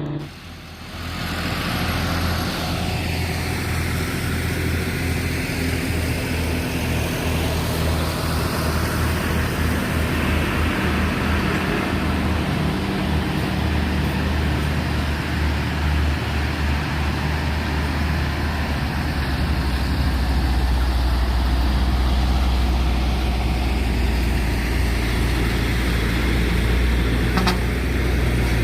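Heavy truck's diesel engine running steadily with a low drone, amid road and traffic noise; the drone grows louder about two-thirds of the way through.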